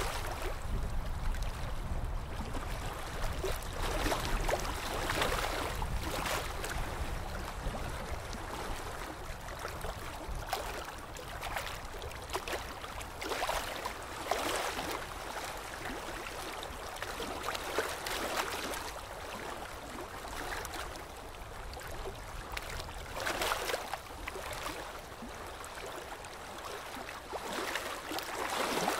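Water splashing and sloshing against a boat's hull in irregular surges, over a low rumble that fades after the first several seconds.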